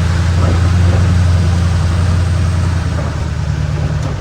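Truck engine running steadily while driving, a constant low drone with road noise.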